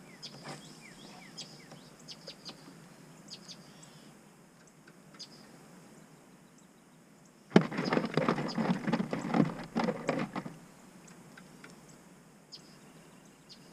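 Faint bird chirps over a quiet marsh, then about halfway through a sudden burst of rapid, irregular knocking and rattling that lasts about three seconds before it falls quiet again.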